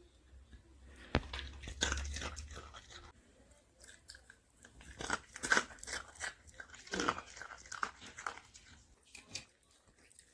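Dog crunching and chewing pieces of a hard dog cookie (Burger King's burger-shaped Dogpper treat), in irregular crunches that come and go.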